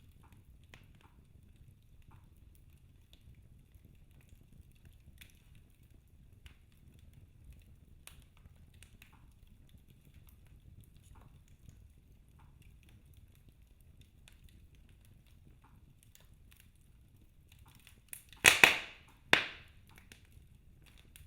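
Wood fire in a fireplace crackling faintly with sparse small pops over a low hum, then two loud crackling bursts near the end, about a second apart.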